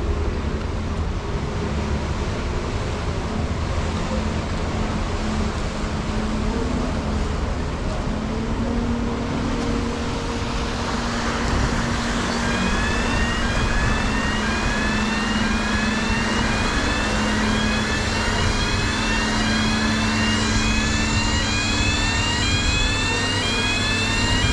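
Electric hybrid car ferry's machinery and propellers running with a steady low drone; about ten seconds in a rushing wash of churned water swells up. From about twelve seconds a short rising electronic warning chirp repeats about once a second.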